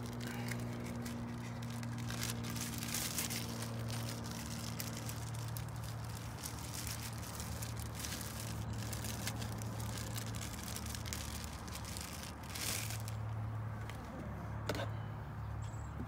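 Intermittent rustling and crinkling from handling, with a few light ticks, over a steady low hum.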